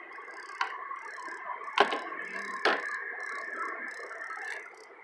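Canoe paddle knocking sharply against the canoe three times, loudest just under two seconds in, over a steady chirring background.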